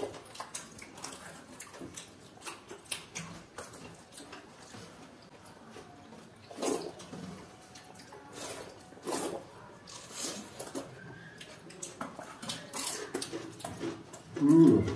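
Wet eating sounds: hands squishing and scooping water-soaked rice (panta bhat) in steel plates, with chewing and lip-smacking. Many short irregular wet clicks and smacks, a few louder than the rest.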